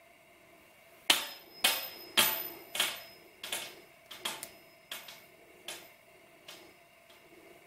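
A metal spinning top knocking against a glass mirror surface as it winds down: about a dozen hard clacks that start about a second in, loud at first, then softer and further apart, the first few with a brief metallic ring.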